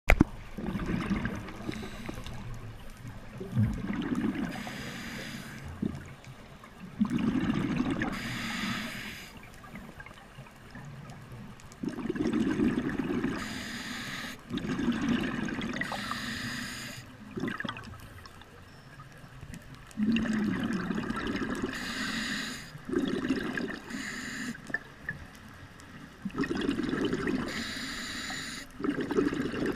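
Scuba diver breathing through a regulator underwater: a short hissing inhale, then a louder gurgling rush of exhaled bubbles, repeating every few seconds.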